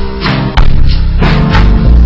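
Loud background music with guitar and a steady beat.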